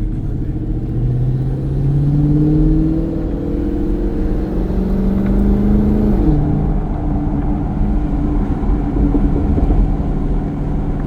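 Dodge Challenger Hellcat Redeye's supercharged Hemi V8 running through a Corsa Xtreme exhaust, its pitch rising steadily for about six seconds. It then drops suddenly and holds steady.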